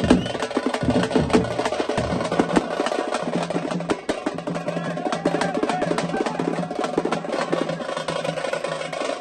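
Tamate frame drums beaten fast with sticks in a dense, driving folk rhythm. Heavier low strokes drop out about two seconds in, and quicker, lighter strokes carry on.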